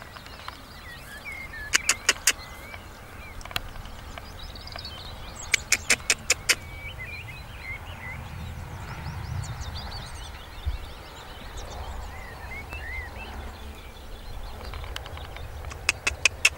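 Small birds chirping and singing over a low rumble that swells for a couple of seconds midway. Three quick runs of sharp clicks, about five a second, come at about two seconds, about six seconds and near the end.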